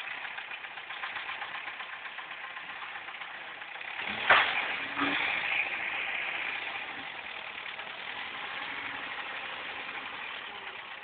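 Forklift engine running steadily. A sharp knock about four seconds in is the loudest sound, with a weaker one a second later.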